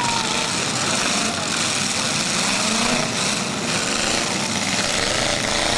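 Demolition derby cars' engines running together in a steady, loud din.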